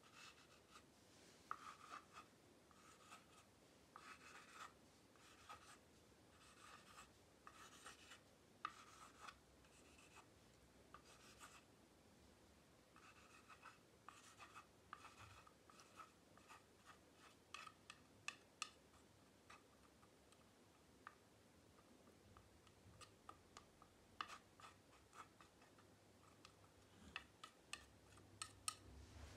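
Faint repeated scraping strokes of a metal palette knife spreading thick paint across canvas, with sharper little ticks growing more frequent in the second half.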